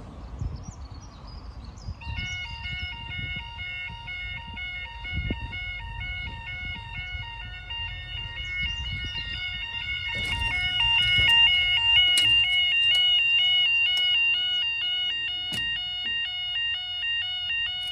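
Railway level crossing warning alarm starting about two seconds in and sounding steadily, a two-tone alarm stepping back and forth between two pitches, growing louder about halfway through, over a low rumble.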